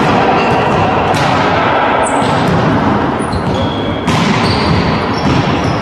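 Volleyball rally in an echoing sports hall: the ball is struck several times with sharp smacks, and shoes squeak briefly on the wooden court floor over a steady din of the hall.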